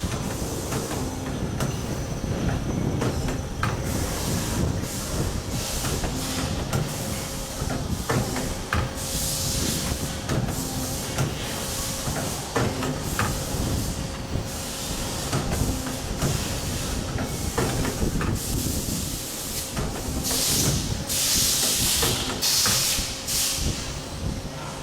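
Hydraulic CNC tube-bending machine working: a low running rumble with scattered clicks and knocks, and repeated bursts of hissing, the longest near the end.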